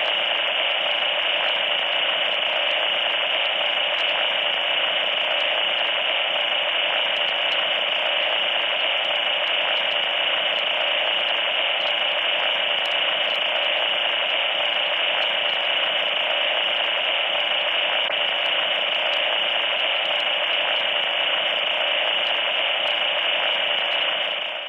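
Loud, steady electronic static hiss that cuts off suddenly right at the end.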